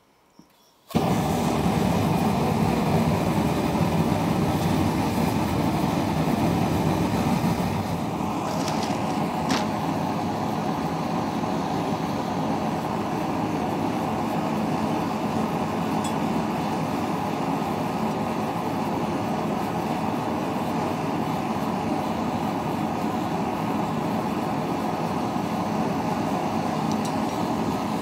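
Single-burner propane forge lighting off about a second in, then its burner running with a loud, steady rushing noise, a little quieter from about eight seconds in.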